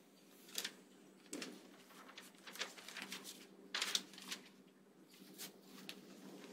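Scattered rustling of paper and small handling noises, several short rustles and clicks with the loudest about four seconds in, over a steady low hum.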